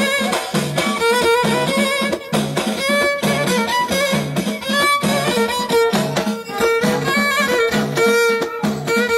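Live Amazigh folk music from the Middle Atlas: a violin plays a wavering, ornamented melody over a steady, repeating frame-drum (bendir) beat.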